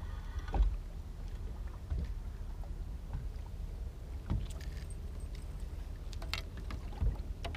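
Steady low rumble of water and wind around a small fibreglass boat, with a few dull knocks against the boat about every second or two and some light clicking near the middle as a perch is landed and handled.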